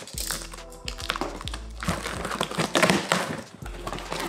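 Large cardboard shipping box being handled and its flaps pulled open, the cardboard rustling and scraping in repeated strokes, over background music.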